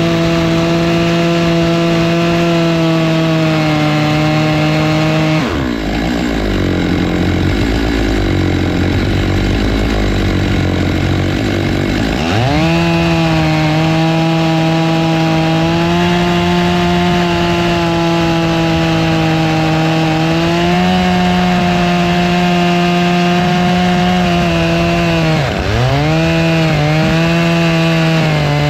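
Stihl MS 661 two-stroke chainsaw running at full throttle on a milling cut with a 20-inch bar and ripping chain. It drops to idle about five seconds in, revs back up about twelve seconds in, and dips twice briefly near the end.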